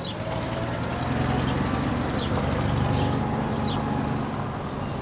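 A low, steady rumble that swells a second or so in and eases off toward the end, with small birds chirping now and then.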